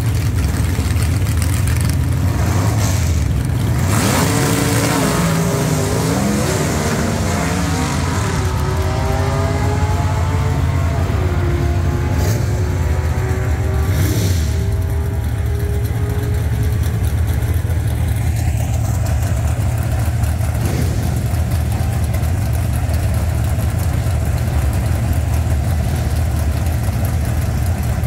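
Drag-racing car launching from the start line and accelerating down the strip, beginning about four seconds in. Its engine note climbs and drops back at each gear change, then fades out as the car gets farther away, over a steady low engine rumble close by.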